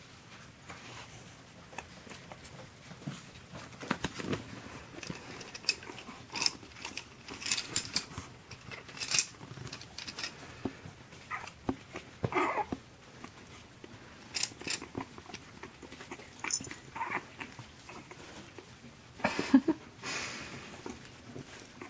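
Chihuahua puppies playing, with short scattered puppy yips and grumbles among clicks and rustling on fleece bedding. The loudest call comes near the end.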